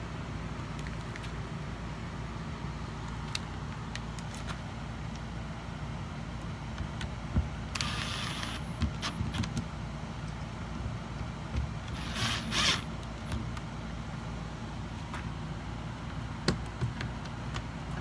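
Cordless drill/driver running in two short bursts, about eight seconds in and again about twelve seconds in, driving screws on the bus door's lock hardware, with a few light clicks of handling in between.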